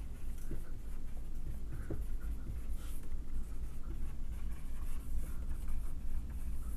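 Marker pen writing on a whiteboard: short scratchy strokes with a few light taps as the letters are formed, over a steady low hum.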